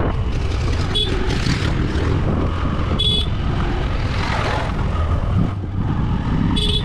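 Motorcycle on the move heard through a GoPro's internal mic: steady engine and wind rumble. Short horn beeps cut through it, the clearest about three seconds in and another at the very end.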